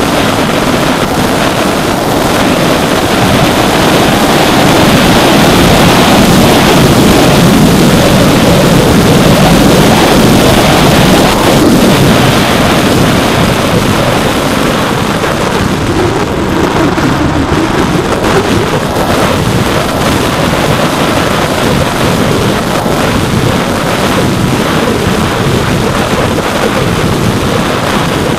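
In-flight noise from an FPV RC plane picked up by its onboard camera: a steady rush of wind over the microphone mixed with the drone of a brushless outrunner motor turning an 8-inch propeller. It is loudest in the first dozen seconds, then eases off a little.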